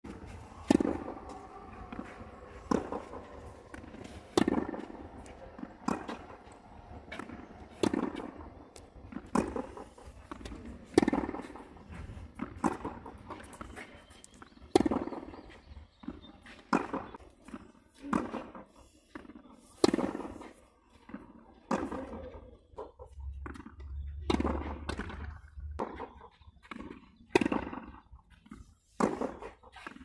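Tennis balls struck back and forth by rackets in a rally on a clay court: a sharp pop about every one and a half to two seconds.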